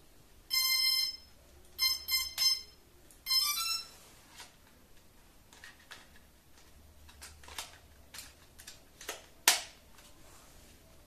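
Electronic beeps from a Cheerson CX-20 quadcopter: one long beep, three short ones, then a quick run of tones rising in pitch. Scattered plastic clicks and knocks from handling the drone follow, the loudest near the end.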